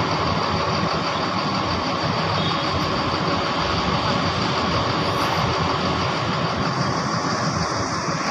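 Large bus diesel engine running steadily at idle during an engine test run.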